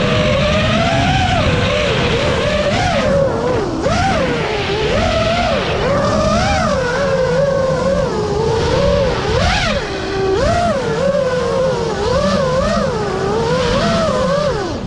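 FPV quadcopter's brushless motors (Flywoo 2306 1750 KV on 6S) whining in flight, the pitch swooping up and down again and again as the throttle is worked.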